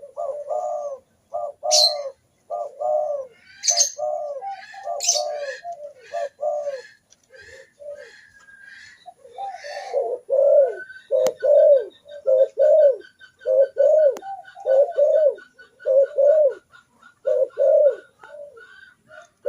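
Spotted doves cooing: a long run of short, repeated low coos that pauses briefly and then comes back louder. Small birds chirp faintly above it.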